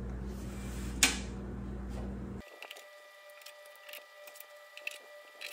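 A low steady hum with a single click about a second in. After a cut, a series of small, irregular metal clicks as clecos are squeezed with cleco pliers and set into the holes of an aluminium spar cap, over a faint steady high tone.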